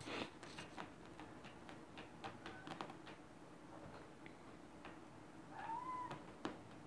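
Kittens mewing: a faint short mew about two and a half seconds in and a clearer, longer one near the end. Light clicks and scratches of small claws on sofa upholstery run under the mews.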